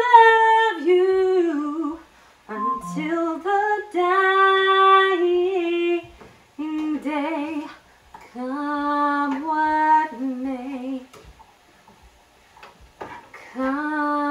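A woman singing unaccompanied, in several phrases of held notes with vibrato and short breaks between them.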